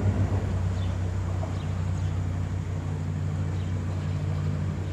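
Narrowboat diesel engine running steadily at low revs, a constant low hum while the boat holds station.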